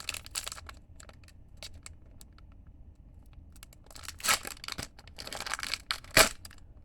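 Pokémon card booster pack wrapper being torn open and crinkled, in ragged bursts, with the loudest sharp rip about six seconds in.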